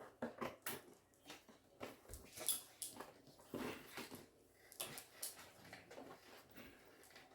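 Scissors snipping through cardstock, with paper rustling, heard as a string of faint, irregular short clicks and scratches.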